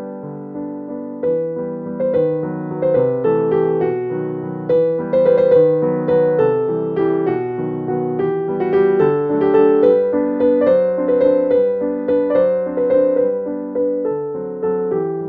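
Background piano music: a flowing melody of single notes that strike and fade, over softer lower chords.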